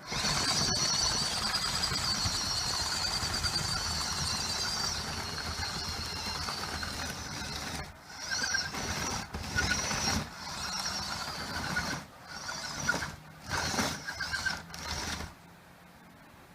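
Small electric gear motors of an RC track loader whining as it is driven, steady for several seconds and then in short stop-start runs.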